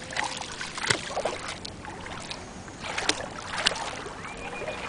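Water splashing and sloshing at the shoreline, with many short splashes and clicks.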